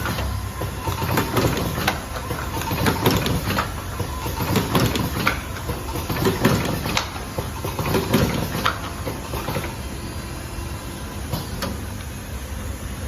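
Automatic cartoning machine running, with a rhythmic clatter of knocks about once a second over a steady mechanical noise; the knocks ease off after about ten seconds.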